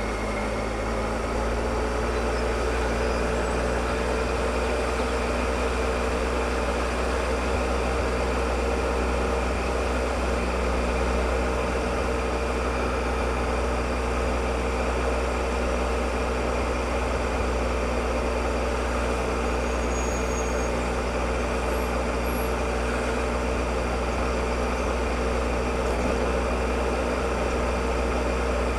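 Triumph Explorer motorcycle's three-cylinder engine running at a steady cruise, its pitch holding nearly level, over a heavy rumble of wind on the microphone.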